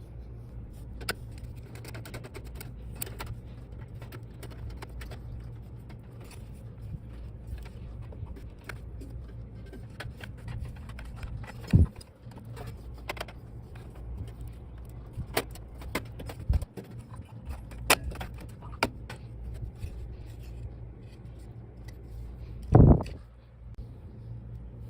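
Hands handling desktop computer parts: scattered clicks and small metallic clinks over a steady low hum, with two louder thumps, one about halfway through and one near the end.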